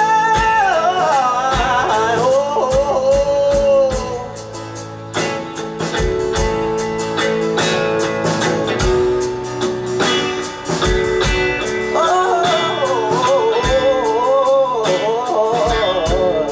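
Live band music with drums and guitar at a slow steady beat. A male singer sings wordless, wavering vocal runs in the first few seconds and again later on.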